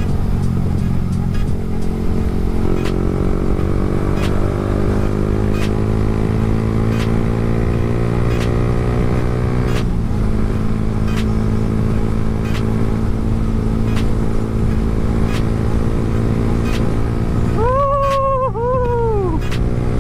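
Yamaha R15 V3's single-cylinder engine on a stock exhaust, ridden under way: its pitch climbs steadily through one gear for about ten seconds, drops at a shift, then runs steady. Near the end two short tones bend up and down over the engine.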